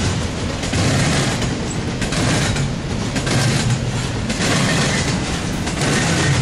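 An intermodal freight train's cars rolling past at speed. A steady rumble of wheels on rail rises and falls in a rough rhythm as the cars go by.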